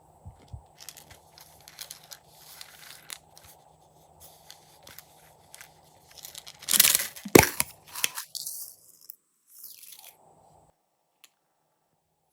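Glossy slime being squished and stretched by hand, with sticky crackling and popping that is loudest about 7 seconds in and stops about 10 seconds in.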